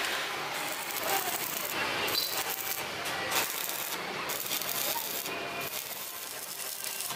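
Stick (manual arc) welding on mild-steel rectangular tube: the arc crackles and sizzles, stopping briefly about five times.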